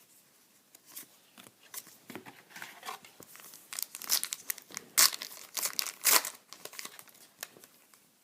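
A foil trading-card pack being torn open and its wrapper crinkled, a run of sharp crackles and rustles that grows louder in the middle and then fades.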